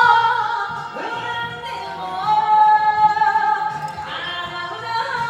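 A singer performing an enka ballad over a karaoke backing track, drawing out long notes with vibrato.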